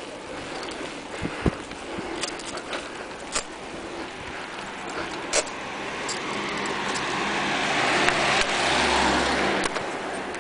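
A car passing by on the street: its engine and tyre noise swell over several seconds, loudest about eight to nine seconds in, then fade. A few sharp clicks come early on top of it.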